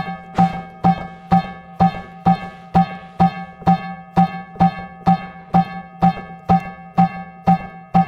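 A single musical note, sharply struck and dying away, repeating steadily about twice a second at the same pitch.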